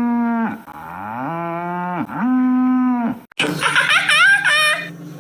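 Cattle mooing: three long moos in a row, the second starting lower and rising in pitch. About three seconds in, it cuts off abruptly to another animal's calls with pitch sliding up and down.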